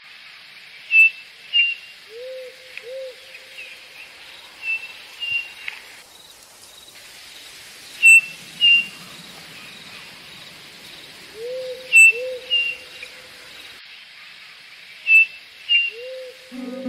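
Nature ambience: birds chirping in short sharp calls, mostly in pairs, with low two-note hooting calls a few times, over a steady insect hiss. A plucked guitar comes in at the very end.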